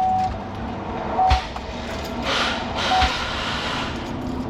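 Car's electronic warning chime: a steady beep tone that cuts off just after the start, then two short beeps at the same pitch about a second and a half apart, with a few light knocks and rustling from hands working at the ignition switch.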